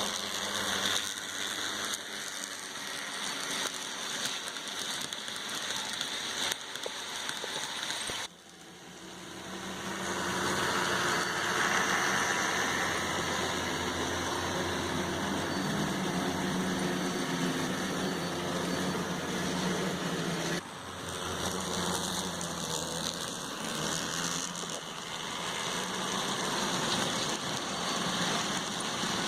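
N scale model train running on track: the locomotive's small electric motor whirring steadily with the rolling of its wheels. It swells louder from about ten seconds in, and the sound breaks off abruptly twice.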